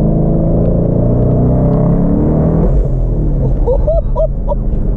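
Twin-turbo 2016 Mustang GT's V8 pulling under acceleration inside the cabin, its note rising slightly, then dropping away about two and a half seconds in. Near the end a passenger lets out a few short whooping exclamations.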